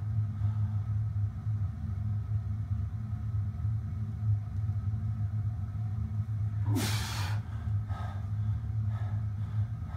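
Steady low hum of a running machine throughout. Over it is a man's breathing under a loaded safety squat bar: a loud, sharp exhale lasting about half a second, about seven seconds in as he rises from the squat, and fainter breaths around it.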